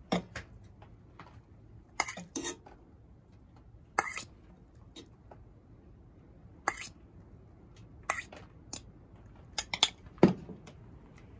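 Metal tongs clinking and knocking against an aluminium pot and an enamel bowl while spaghetti is lifted out and served: about a dozen scattered sharp clinks, the loudest near the end.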